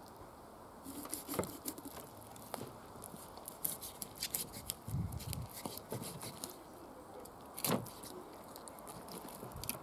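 Kitchen knife cutting through a whole carp's scales and backbone behind the head on a wooden cutting board. It makes a run of crunching clicks and cracks, with low knocks of the blade on the board and one sharp crack about three-quarters of the way through.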